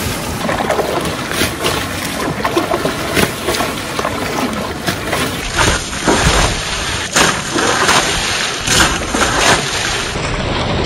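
Bucketfuls of river water thrown against a tractor's bonnet, splashing and sloshing again and again over a steady wash of moving water.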